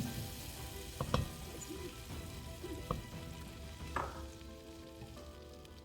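Diced onion sizzling in butter and bacon grease in a pot as it is stirred, with a utensil knocking against the pot three times.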